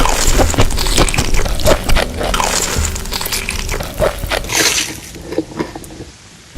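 Background music with close-up crackling and crunching, the kind of eating noises picked up near the microphone, easing off near the end.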